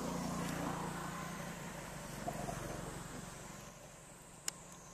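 A motor vehicle passing by, its engine noise loudest at the start and fading away over about three and a half seconds. A single sharp click sounds near the end.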